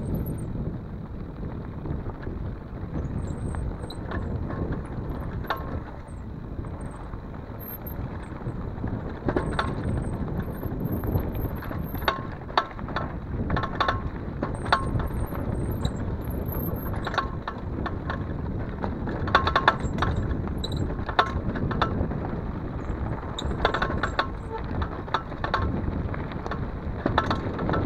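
Mountain bike riding down a rough dirt and gravel trail, with wind rumbling on the microphone. Sharp rattles and clicks come from the bike jolting over bumps and stones, thickest from about a third of the way in.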